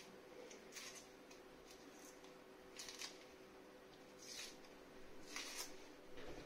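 Dry skin of a salted, dried vobla crackling as it is peeled off by hand: a few faint, short crinkling rustles.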